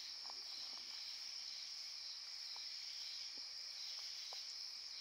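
Night insects, such as crickets, trilling steadily in a high-pitched chorus, with a few faint ticks.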